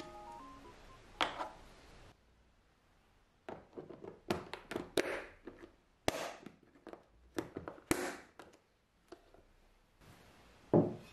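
Plastic lunch-box lid being fitted and pressed shut: a run of short clicks, taps and rubbing noises with brief gaps between them. Near the end comes a single knock, a plate set down on a table.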